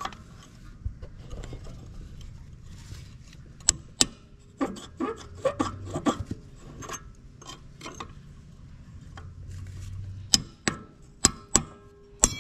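Sharp metal clinks and clanks of tools and steel parts on an old tractor disc, some ringing briefly. A few come around four seconds in, a run follows in the middle, and another run comes near the end.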